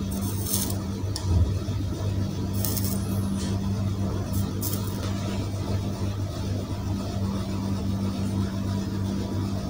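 A steady low hum, with a few brief faint hisses of solder flux as a soldering iron works on a small circuit board.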